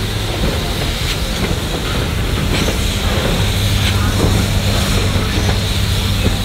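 Steam locomotives at work in a rail yard: a steady hiss of steam, with a low hum that comes in a couple of seconds in and grows louder, and scattered faint knocks.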